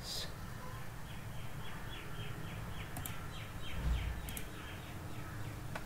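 A bird calling in the background: a quick run of about a dozen short falling notes, about four a second, over low steady room noise, with a few sharp clicks.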